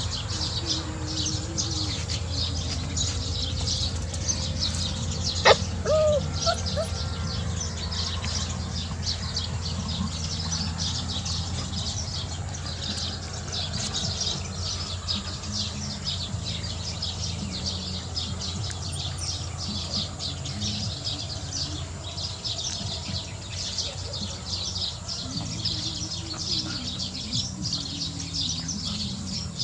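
Birds and insects chirping constantly, high and fast, over a steady low hum. A sharp click and a short squeak about five and a half seconds in are the loudest sound.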